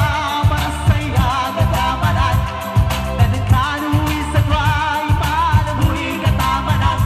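Live singing into a microphone, the voice wavering with vibrato, over an electronic keyboard accompaniment with a steady beat.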